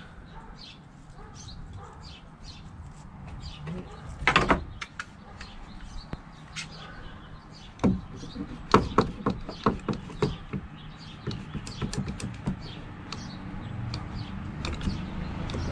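Knocks and sharp clicks from a plywood drawer front being set in place and a bar clamp being tightened onto it. A loud knock comes about four seconds in, then a quick run of clicks from about eight to thirteen seconds.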